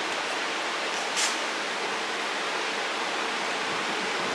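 A steady rushing noise, with one short sharp tick about a second in.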